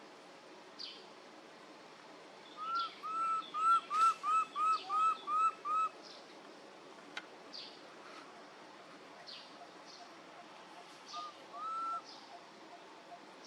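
Bird calling: a run of about nine clear, arched hooting notes at about three a second, then two more near the end, with short high chirps from other birds scattered throughout.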